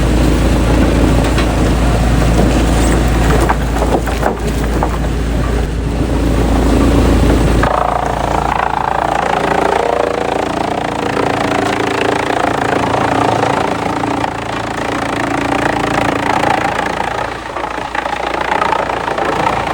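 Heavy machinery running loud: a deep, steady engine rumble that changes abruptly about 8 seconds in to a different machine's steady whine with clatter.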